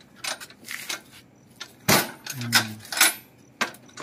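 Irregular metallic knocks, clinks and rattles from hands handling the steel rods and racks of a street-food cart loaded with groceries. The loudest clatters come about two and three seconds in.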